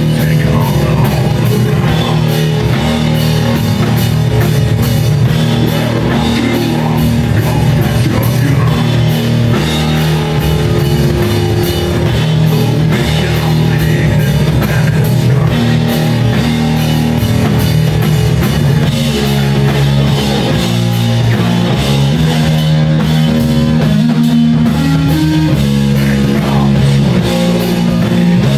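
A live rock band playing loud, heavy rock on electric guitar, bass guitar and drum kit. The music is dense and steady, with the bass line shifting pitch through the passage.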